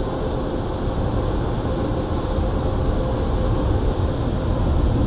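Automatic car wash dryer blowers blasting air over the car, heard from inside the car as a steady, loud rush with a constant hum, getting a little louder near the end.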